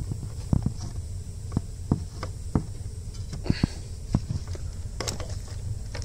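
Irregular light clicks and knocks from plastic wiring connectors of a brake pressure switch adapter harness being handled and pushed together behind the dash panel, about a dozen in a few seconds, over a steady low hum.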